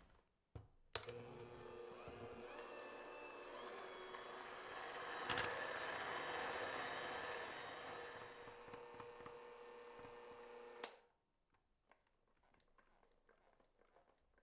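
Electric hand mixer starting with a click and running steadily with a humming motor, its beaters whipping buttercream in a glass bowl. There is another sharp click about five seconds in, and the mixer stops suddenly about eleven seconds in, followed by a few faint light taps.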